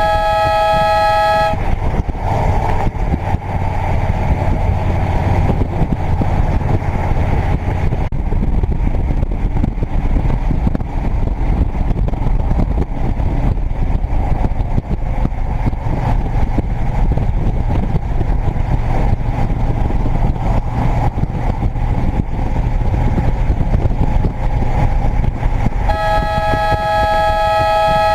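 An air horn blares as a steady two-note chord, cutting off about a second and a half in and sounding again for about two and a half seconds near the end. Between the blasts there is steady vehicle and road noise.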